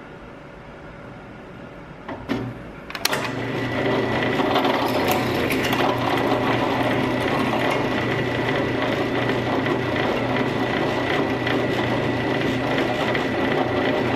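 Drill press running with a steady motor hum. About three seconds in, after a couple of light knocks, the 9/32-inch bit bites into the metal scope riser, and a loud, steady cutting noise with a high whine carries on over the motor. The bit is boring a second hole beside the first to make an oval slot.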